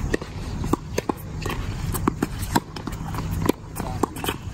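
Tennis rally on a hard court: a string of sharp pops from rackets striking the ball and the ball bouncing, mixed with footsteps, over a low rumble of wind on the microphone.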